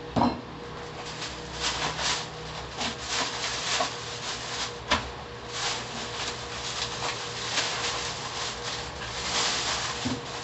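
Plastic bags rustling and takeout food containers being handled and set down on a small table: a string of crinkles and light clicks, with a knock just after the start and a sharp click about five seconds in. A faint steady hum runs underneath.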